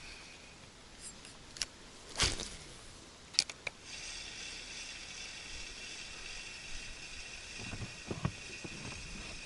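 A few sharp clicks and a knock, then from about four seconds in the steady high whir of a spinning reel being cranked to retrieve the lure.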